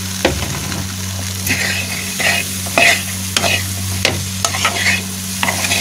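Wooden spatula stirring diced potatoes and onions in a hot, oiled pan: a frying sizzle under repeated scraping strokes, about one or two a second. A steady low hum runs underneath.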